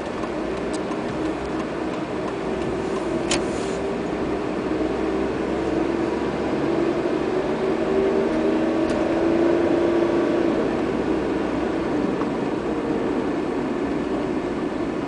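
Car driving on a city road, heard from inside the cabin: a steady drone of engine and tyre noise with a low hum, a little louder in the middle. A sharp click about three seconds in.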